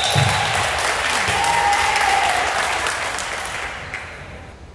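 Spectators clapping and cheering after a point is won in a volleyball match. The applause starts suddenly and dies away over about four seconds.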